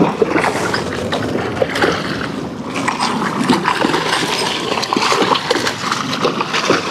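A hooked pink salmon thrashing at the water's surface right beside a kayak, in continuous, irregular splashing as it is fought and netted.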